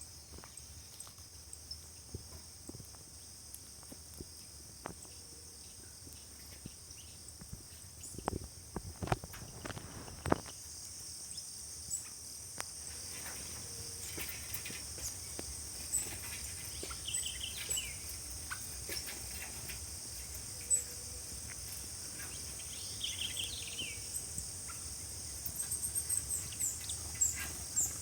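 Rural outdoor ambience: a steady high-pitched insect chorus throughout, with a few short bird chirps in the second half and a quick run of high chirps near the end. Scattered clicks, and a few louder knocks about eight to ten seconds in.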